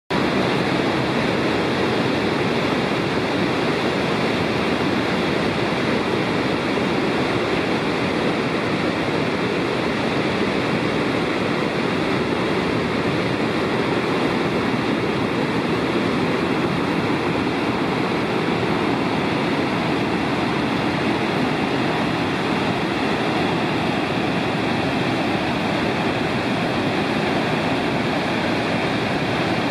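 Victoria Falls on the Zambezi River: a steady rush of falling water, with a thin steady high tone running through it.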